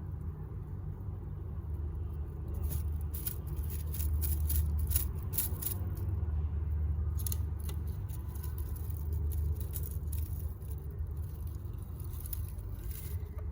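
Soft, scattered rustling and crackling of nest bedding as newborn rabbits shift and wriggle over one another, coming in clusters from a few seconds in, over a steady low rumble.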